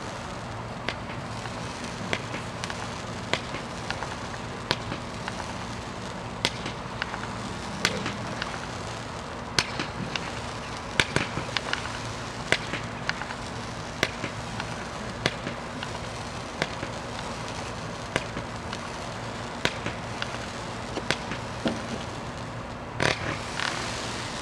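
A 200-gram consumer firework launching blue pearl stars with gold strobe tails: a sharp pop about every one and a half seconds as each shot leaves its tube. Near the end comes a louder quick cluster of pops with a short hiss.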